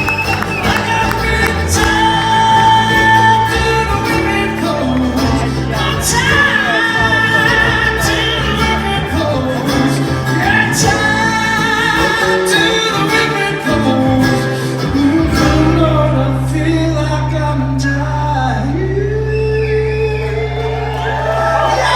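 Live bluegrass band playing with several voices singing, plucked strings and upright bass. In the last few seconds the band holds one long sustained chord.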